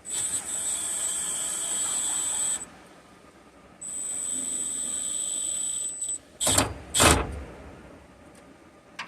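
Cordless drill-driver motor whining steadily in two runs of about two and a half seconds each, then two loud knocks close together near the end.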